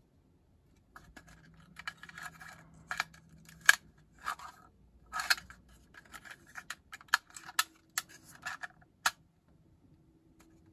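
Handling noise of a 3D-printed plastic card case being worked by hand: an irregular run of sharp plastic clicks, taps and short scrapes as its rubber band is pulled out and hooked aside, starting about a second in and stopping shortly before the end.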